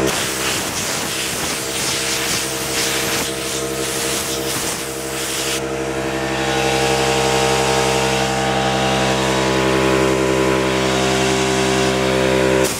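Air compressor running with a steady hum while a blow gun on its hose blasts air at dirty RC buggy suspension parts with a loud hiss. The hiss eases about halfway through as the blast is lessened, and the compressor's hum carries on.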